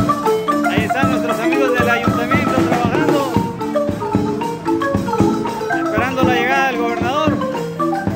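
Wooden marimba played with mallets: a quick, continuous run of struck notes in several parts at once, with melody over lower accompanying notes.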